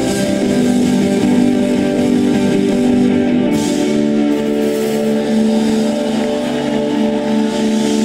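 Rock band playing: electric guitar holding sustained chords, moving to a new chord about three and a half seconds in.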